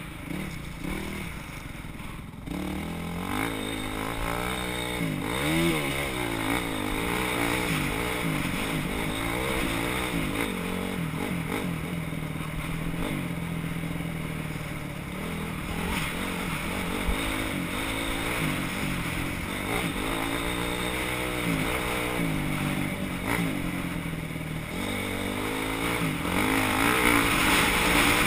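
Motocross dirt bike engines revving up and down in pitch over and over as the bikes race around a dirt course, getting louder near the end as a bike comes closer.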